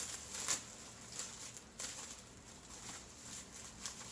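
Faint rustling and a few light taps as a sushi roll is rolled up by hand.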